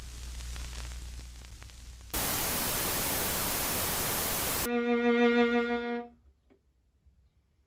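TV static sound effect: a low hum with faint hiss, then about two seconds in a loud burst of white-noise static for about two and a half seconds. The static cuts to a steady buzzy pitched tone for about a second, then it goes near silent.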